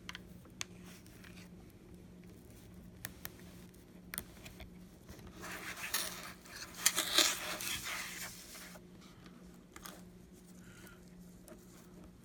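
Small clicks and scrapes of pry tools working under a first-generation iPad mini's glued-down LCD, with a louder spell of scraping and crackling about six to eight seconds in.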